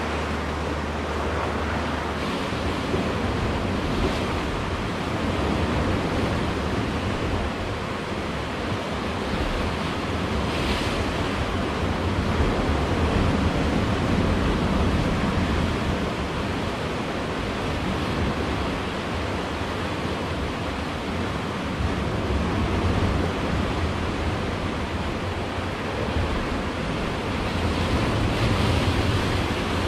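Sea waves breaking and washing around the rocks of a rocky shoreline, a steady rush of surf that swells and eases as each set comes in.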